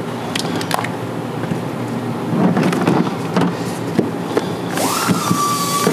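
Clicks, knocks and rattles of hand tools and their cases being handled in a metal tool box. About five seconds in, a high tone rises and then holds steady, sinking slightly.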